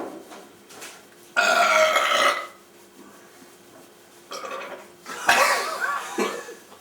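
A man belching loudly, bringing up burps by drinking beer: a long burp about a second and a half in, and another about five seconds in.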